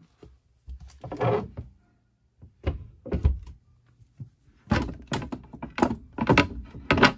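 Knocks and thumps of a hinged solid-surface countertop lid in a boat's galley being handled and lifted, along with a plastic canister being moved on the counter. There are a few scattered thumps in the first half, then a quick run of louder knocks near the end.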